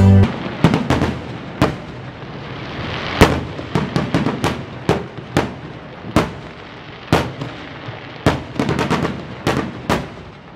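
Aerial fireworks bursting: a long, irregular series of sharp bangs, sometimes several in quick succession, with crackling between them. The loudest bang comes about three seconds in.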